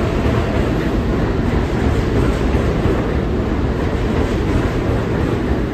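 R188 subway train running past along the platform: a steady, loud noise of steel wheels on the rails and the moving cars.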